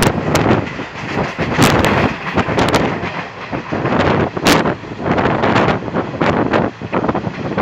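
Passenger train running at about 100 km/h, heard from on board: a steady rush of running noise with irregular knocks and clatter from the wheels, and wind buffeting the microphone.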